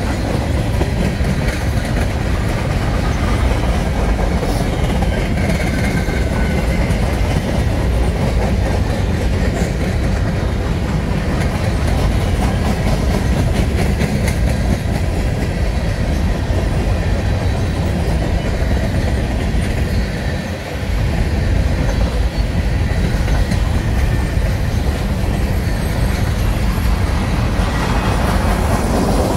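Freight cars of a manifest train (tank cars, boxcars and gondolas) rolling past, their steel wheels running on the rails in a steady, loud rumble and clatter, with a short dip in the noise about twenty seconds in.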